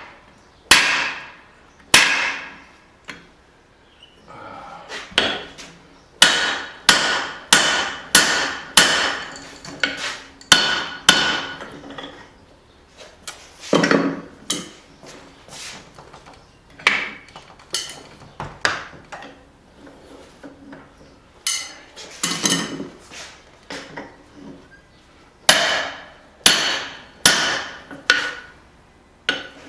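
Hand hammer striking a punch driven into hot steel on an anvil, punching through the eye of a forged hammer head. The blows come in irregular runs with short pauses between them, each with a brief metallic ring.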